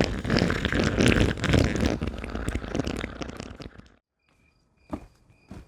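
A loud jumble of noise fades out over about four seconds and then cuts off abruptly. After the cut comes faint, steady, high chirping of insects, with two soft thuds near the end.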